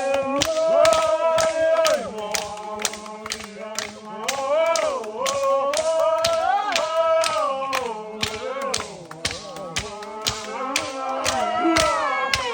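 A group of voices chanting together, sliding between held notes over a steady low drone, with sharp percussive beats keeping a quick, even time.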